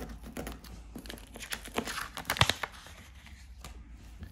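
Black-and-white photo prints and negative strips being leafed through and shuffled by hand: irregular rustling and sliding of paper, with a few sharper snaps around the middle.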